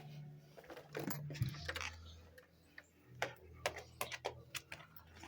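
Irregular light, sharp clicks, coming several in quick succession in the second half, with a brief rustle about a second in and a faint low hum underneath.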